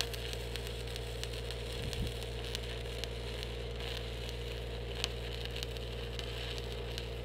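Stick welding arc from a 3/32-inch 7018 electrode, crackling and sizzling steadily as a weld is run on a steel pipe post, over a steady low hum.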